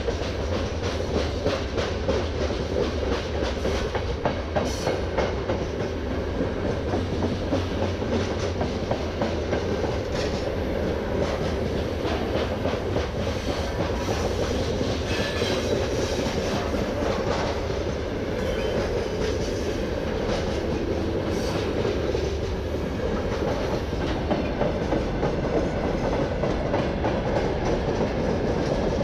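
Freight train of covered hopper wagons rolling past at steady speed: a continuous rumble of wheels on rail with a run of clicks as the wagon wheels pass over the rail joints.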